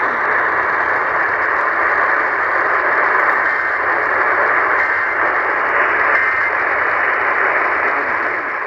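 Steady radio static: a loud, even hiss from a radio receiver, thin and narrow like sound through a small speaker or telephone line.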